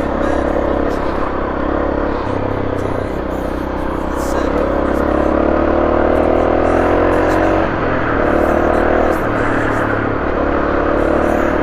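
Honda CRF250L single-cylinder engine running along a dirt trail, revs climbing steadily for about three seconds in the middle, then dropping sharply at a gear change, with a couple more shifts after.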